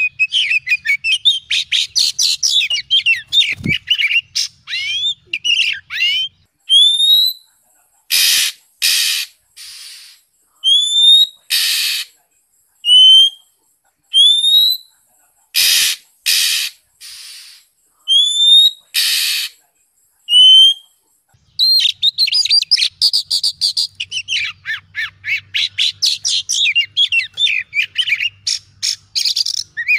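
Oriental magpie-robin singing: a fast run of varied whistles and chatter, then a slower passage of separate rising whistles alternating with short harsh, rasping notes, then fast varied song again near the end.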